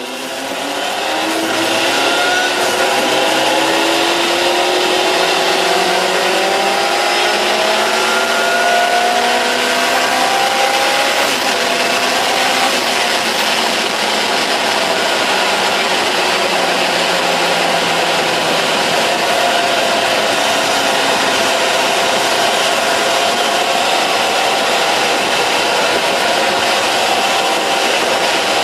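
Honda Hornet 900's inline-four engine, heard on board at speed, accelerating hard through the gears with its pitch climbing in repeated steps, then easing off and climbing again near the end. Heavy wind rush on the microphone runs under it.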